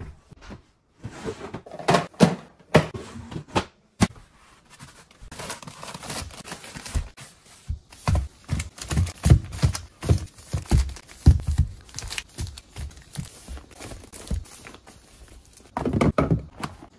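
Plastic-wrapped tissue packs crinkling and a run of light knocks and taps as household items are set onto wooden cabinet shelves. A cabinet door opens at the start, and there is a louder clatter near the end.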